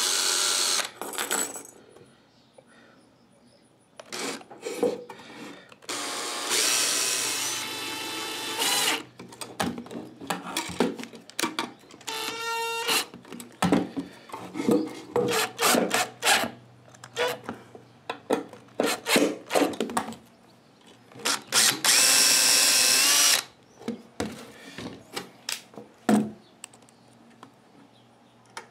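Cordless drill running in short runs, its motor whining, as it pre-drills small holes for screws through brass latch hardware into the wood. Between the runs come sharp clicks and knocks of handling, and one brief rising spin-up near the middle.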